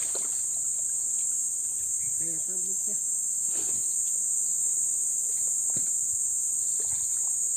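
Steady, high-pitched insect drone, unbroken throughout.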